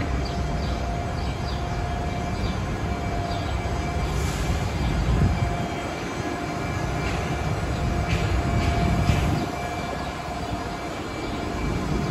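Large city buses idling close by at the bays: a steady low engine rumble with a faint steady whine over it.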